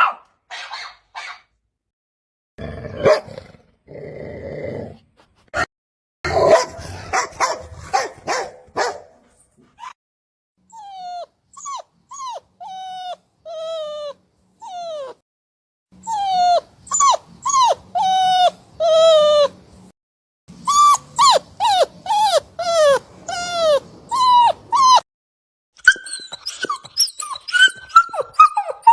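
A string of dog sound clips: bursts of short barks for the first nine seconds or so, then dog whimpers and yips, each call sliding down in pitch, repeated in quick runs with short gaps between them.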